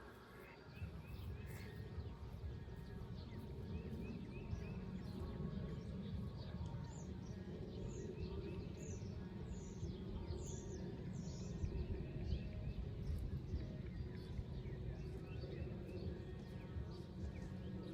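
Small birds chirping repeatedly, with a series of quick high falling chirps in the middle, over a steady low rumble.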